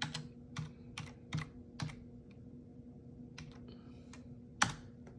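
Keys being typed on a computer keyboard: a run of separate keystroke clicks about every half second, a pause, then a few more, the last one the loudest. A faint steady hum lies underneath.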